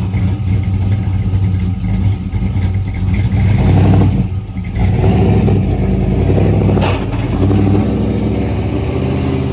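Car engine running close by, its engine speed rising to the loudest point about four seconds in, dipping briefly, then running on at shifting speeds.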